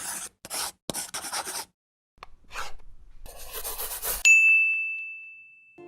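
A few short scratchy rubbing strokes, then a single bright bell-like ding about four seconds in that rings out and slowly fades.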